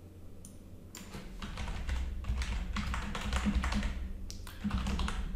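Typing on a computer keyboard: a quick, dense run of keystrokes that starts about a second in and breaks off briefly a little after four seconds before going on.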